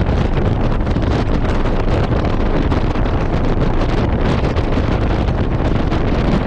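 Loud, steady wind noise buffeting the microphone of an onboard camera in a Porsche 718 Cayman at track speed, a rumbling hiss with no clear engine note standing out.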